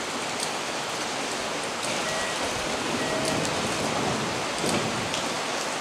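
Heavy rain falling steadily, an even hiss of rain on the platform and station roof.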